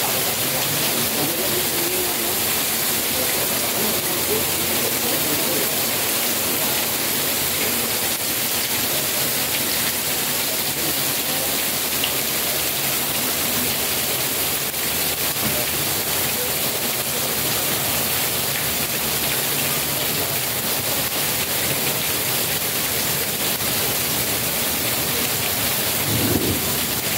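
Heavy rain pouring steadily, splashing onto a flooded concrete walkway and surrounding plants, with a brief louder moment near the end.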